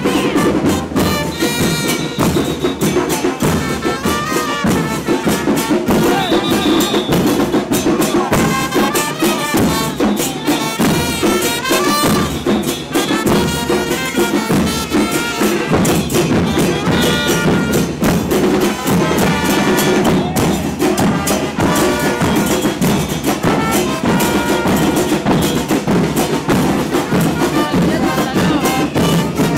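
Live carnival band music: loud, continuous drumming and percussion with a melody of voices or horns over it.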